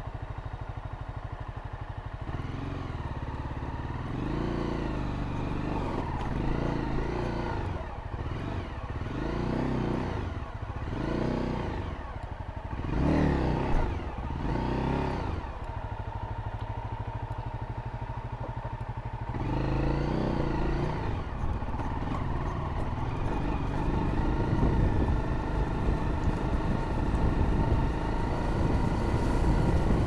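Honda CRF dual-sport motorcycle's single-cylinder four-stroke engine running at low revs, with a string of short throttle blips, each rising and falling, as the bike climbs over rock ledges. It then runs more steadily and grows louder near the end, with tyres and chassis clattering over rock and gravel.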